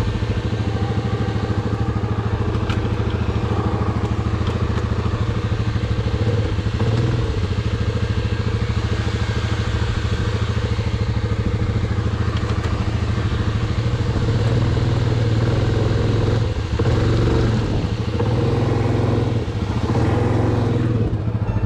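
Yamaha Grizzly 700 ATV's single-cylinder engine running steadily while the quad sits bogged in mud, its revs rising and falling a little in the second half.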